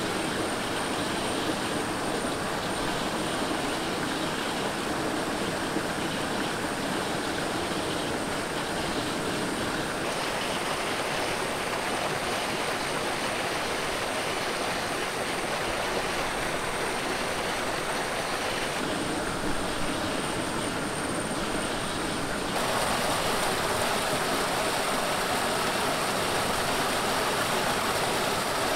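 Rushing stream water splashing over rocks and gushing out of a pipe outlet, a steady rush that changes tone at a few cuts and grows a little louder near the end.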